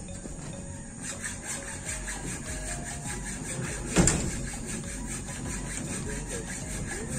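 Steel rebar and hand tools being handled on a reinforcement mat: one sharp knock about four seconds in, over steady background noise.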